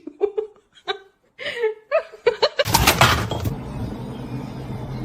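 A person laughing in short repeated bursts. About two and a half seconds in it cuts off and a loud rush of noise lasting about a second takes over, followed by steady background noise.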